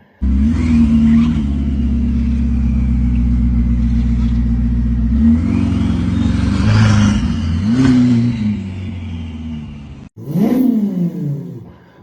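Mouth imitation of a Ferrari SF90's engine and turbo whistle: a steady, loud engine-like drone with a thin high whistle rising over it midway, then, after a short break about ten seconds in, two revs that climb and fall away.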